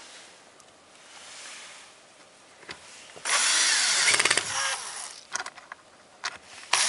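Cordless drill-driver running in two bursts as it drives self-tapping screws into the metal fuel-pump access cover: one run of about a second and a half some three seconds in, a few sharp clicks, then another run starting near the end.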